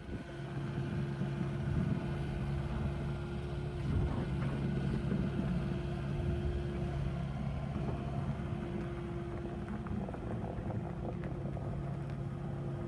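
Diesel engine of a Kubota KX080 excavator running at a steady speed, louder from the very start, with a short knock about four seconds in.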